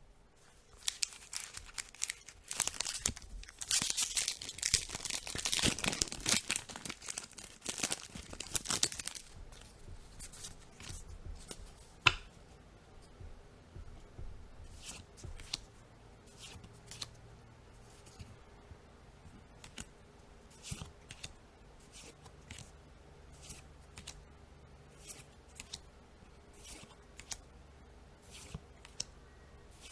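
Foil Magic: The Gathering booster pack wrapper being torn open and crinkled, a dense crackle for the first nine seconds or so. A single sharp snap about twelve seconds in. Then trading cards slid off the stack one at a time, a short swish roughly once a second.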